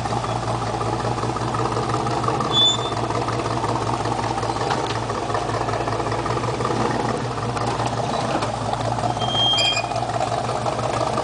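Pickup truck's engine running steadily at low revs as the truck crawls forward over rough ground. A couple of short high squeaks come about two and a half seconds in and again near the end.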